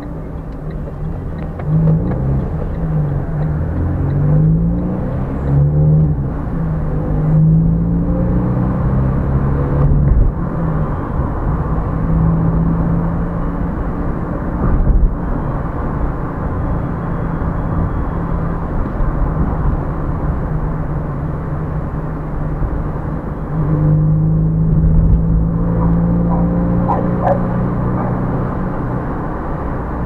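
Car engine heard from inside the cabin, pulling away and rising in pitch through the gears, then running steadily with road rumble; it rises again about three-quarters of the way through.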